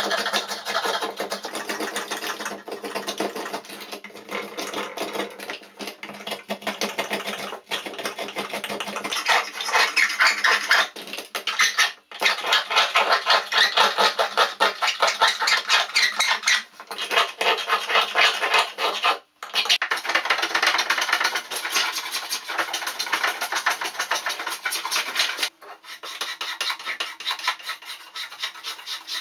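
Spokeshave shaving a wooden canoe paddle blank, a fast run of scraping cutting strokes played back at three times speed, broken by a few brief gaps. A few seconds before the end the strokes turn softer and change in character.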